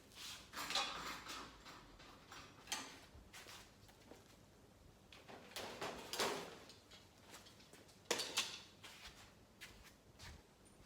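Faint workshop handling noises: short scraping and rubbing sounds in about four separate bursts, with a sharper scrape a little over eight seconds in.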